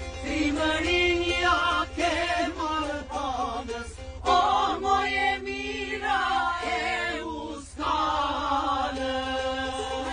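Men and women singing an Albanian folk song together, accompanied by a strummed mandolin, over a steady low rumble from the coach.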